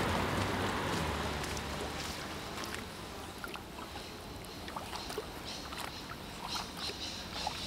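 Light water sounds of a kayak paddled in a shallow concrete drain: scattered small drips and splashes over a quiet hiss, a few short chirps near the end. A low hum fades out over the first couple of seconds.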